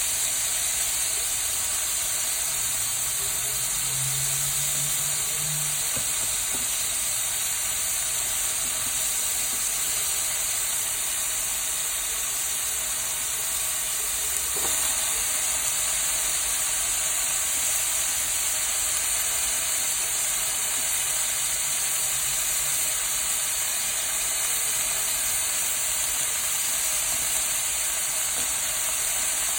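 Vegetables stir-frying in a hot pan, sizzling with a steady high hiss.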